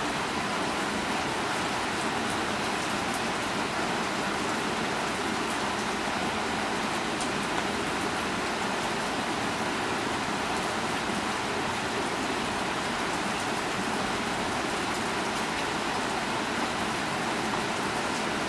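Steady rain, an even hiss with a few faint drip ticks here and there.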